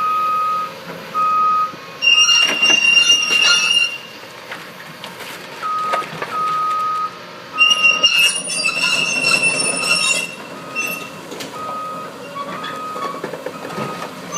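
A heavy machine's backup alarm beeps over and over while the bridge is pulled down. Twice, loud screeching and scraping crashes of breaking structure come through, the first about two seconds in and the second longer, from about seven and a half seconds in.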